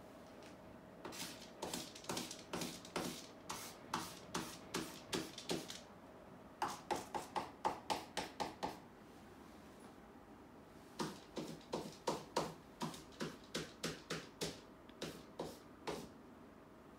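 Marker pen scratching on paper stuck over a wall, in quick short strokes about three to four a second. The strokes come in three runs, with pauses about six and ten seconds in.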